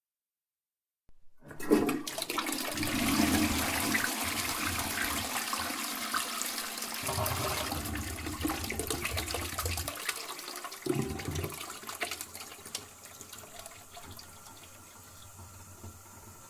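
Toilet flushing: a sudden loud rush of water about a second in, slowly fading after about twelve seconds into a quieter steady hiss of the cistern refilling.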